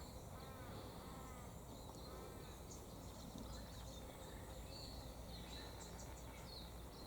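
Quiet outdoor background with a few faint, soft chirps in the distance.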